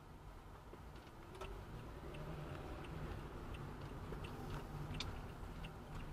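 Quiet, steady low rumble of a car heard from inside, with faint light ticking clicks about one or two a second.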